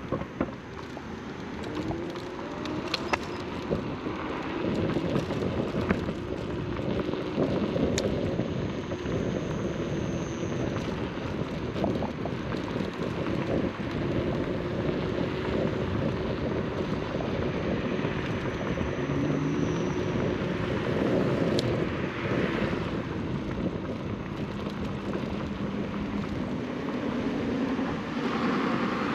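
Riding noise on an Inmotion RS electric scooter: steady wind rushing over the microphone and tyre rumble from the road, with a few sharp clicks and knocks from bumps.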